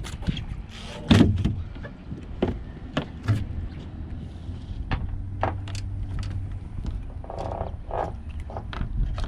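Scattered knocks and clatter on a small fishing boat as a hooked sheepshead is brought aboard, with the loudest knock about a second in.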